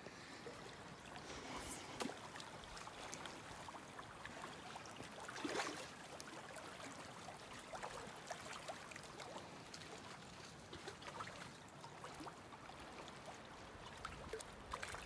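Shallow river flowing past the bank: a faint, steady rush of running water with small irregular trickling ticks and one slightly louder swell about five and a half seconds in.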